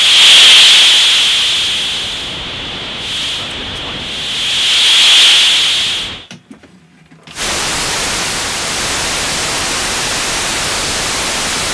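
Raw output of an ARP 2600-style analog synthesizer's noise generator. First comes a hiss with a bright whistly band high up that swells twice and cuts off about six seconds in. After a second of silence, a steady, even white-noise hiss follows.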